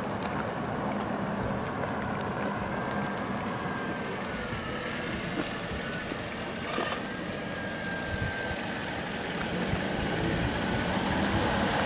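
Steady rushing traffic noise, with a faint thin whine that dips in pitch about five seconds in.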